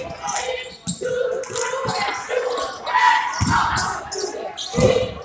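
Basketball game sounds on a hardwood gym court: sneakers squeaking, the ball bouncing as it is dribbled, and shouts echoing in the hall.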